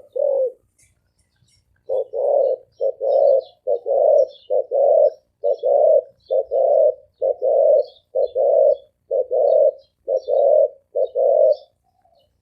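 Deep-voiced spotted dove cooing fast: about eleven quick two-part coos, each a short note followed by a longer one, starting about two seconds in and stopping near the end. Faint chirps of small birds sound above it.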